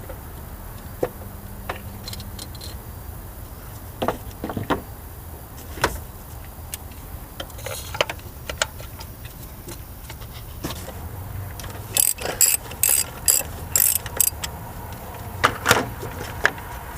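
Socket ratchet clicking in short runs, with scattered knocks of tools against metal, while spark plugs are being changed. A quick run of clicks comes about twelve seconds in and another shorter one near the end.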